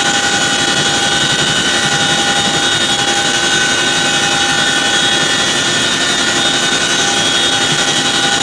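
MH-47 Chinook helicopter's twin turboshaft engines and tandem rotors heard from inside the cabin with the rear ramp open: a loud, steady rush with a constant high turbine whine over it.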